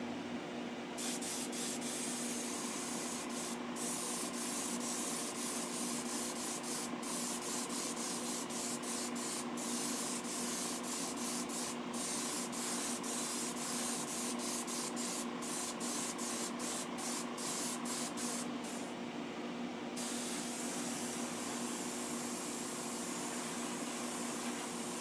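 Gravity-feed airbrush spraying gloss black paint: a hiss of air and paint that starts about a second in and is cut by many brief pauses as the trigger is let off and pulled again, then runs more evenly from about 20 seconds in. A steady low hum sits underneath throughout.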